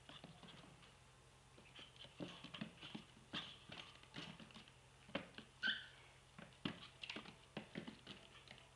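Irregular light clicking and tapping of a chihuahua puppy's claws on a parquet wood floor as it scampers and hops around. A peach-faced lovebird gives one short chirp a little past halfway.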